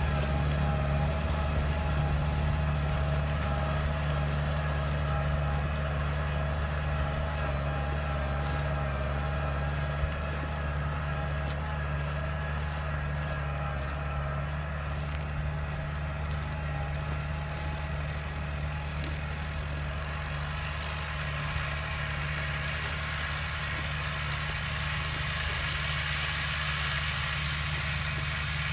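Diesel tractor engine running steadily under load.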